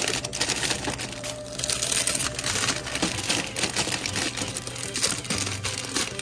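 Plastic snack bags crinkling on and off as they are handled and pushed into a vending machine's spiral coil slot.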